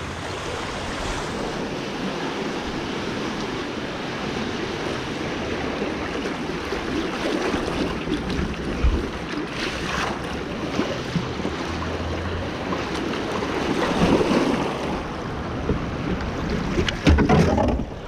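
Fast, shallow river water rushing and splashing around a kayak running riffles, with paddle splashes; the rushing grows louder toward the end, where there is a brief loud burst of splashing.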